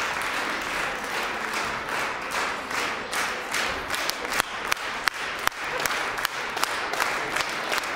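Audience applauding. The dense applause thins after about three seconds into scattered individual claps.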